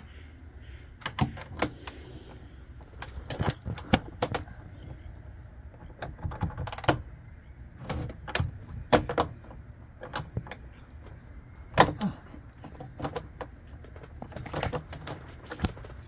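Scattered clicks, knocks and light metallic clinks of hands handling battery cables and small hardware, with a short rattle about a third of the way in.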